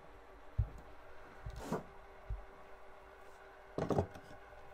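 Handling of the yacht's wooden cabin joinery: a floorboard is set back over the bilge opening with a few light knocks, then about four seconds in there is a short clatter of clicks as a hand presses a push-button latch on a wooden panel.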